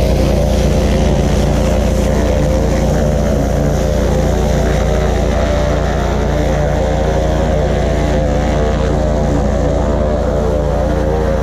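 A motor running steadily, a low, even drone with a stack of steady tones that does not change.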